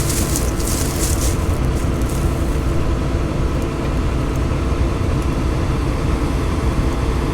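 Large diesel engine running steadily at a constant speed, with scratchy rustling in the first couple of seconds.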